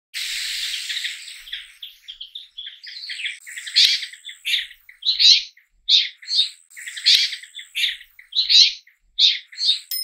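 Bramblings calling: many short high calls overlapping densely in the first second or so, then separate calls following in quick succession, several a second.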